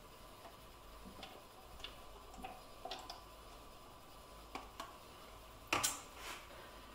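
Faint scattered ticks from plastic cups being handled as watered-down paint is poured slowly in drops into a cup of oil, then a louder knock near the end as the plastic cup is set down.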